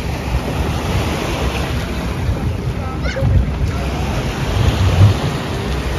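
Sea surf washing onto a beach, with wind buffeting the microphone in a low rumble that gusts harder about five seconds in.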